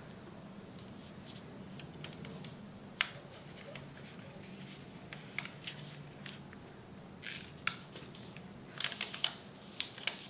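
A square of origami paper being folded by hand: crisp paper crackles and snaps as the sheet is lifted and the creases are pressed, a few scattered at first and a busier cluster near the end, over a faint steady low hum.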